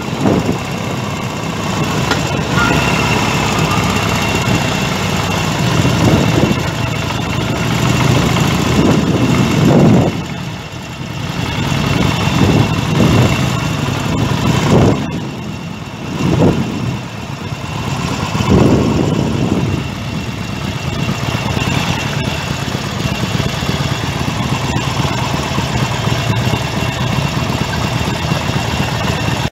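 Motorcycle engine running at low speed, with the engine note swelling and falling back several times in the middle stretch as the throttle is opened and closed.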